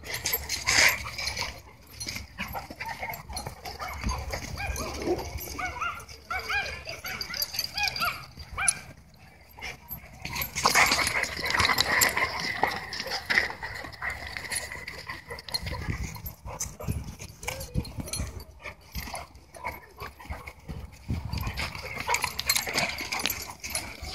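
German shorthaired pointers play-fighting at close range: a run of short growls and whines throughout, with the loudest stretch of vocalizing starting about halfway through.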